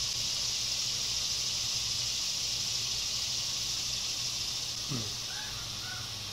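Steady high-pitched insect chorus with a low hum underneath. About five seconds in, a man gives a short murmured 'mm' while chewing.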